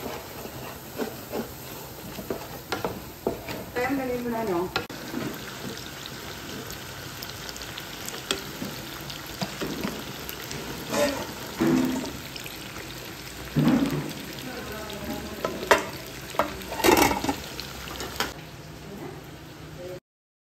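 A spatula stirs and scrapes a thick masala in a pot while chicken pieces sizzle steadily as they fry in hot oil. Occasional sharp knocks and scrapes of utensils against the cookware come through, the loudest near the end.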